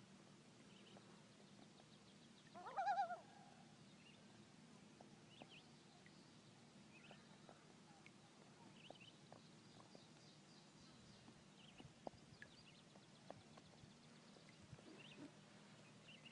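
Common loon giving one short wavering call about three seconds in, over a faint lake background with scattered small bird chirps and a few soft clicks.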